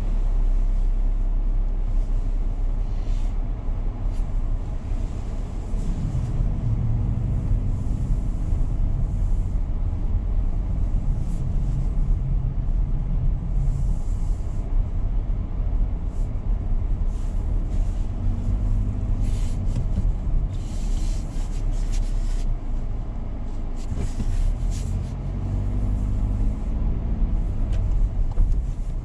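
A car being driven, with a steady low road rumble throughout. The engine's hum rises and falls several times as the car speeds up and slows, and short hissing noises come and go.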